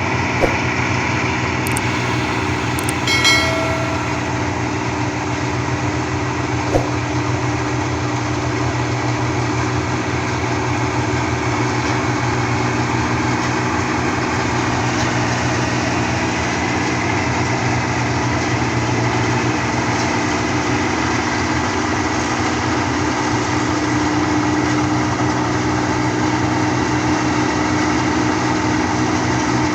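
Rice combine harvester's engine running steadily under load with a continuous drone. A brief high pitched tone sounds about three seconds in.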